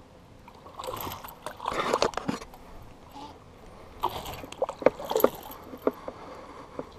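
Hooked largemouth bass splashing at the surface beside a boat as it is brought in to be landed by hand, in two bouts, about a second in and again about four seconds in, with a few sharp clicks and drips among them.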